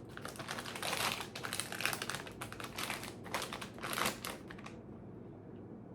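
Crinkly plastic snack-chip bag being pulled open and handled, with a dense, irregular crackling that dies down about four and a half seconds in.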